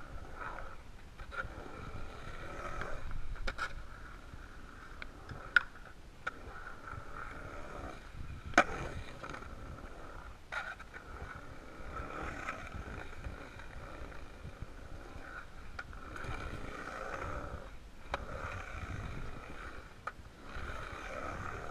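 Skateboard wheels rolling and carving across a concrete bowl, a steady rumbling roar, with two sharp clacks of the board about five and a half and eight and a half seconds in.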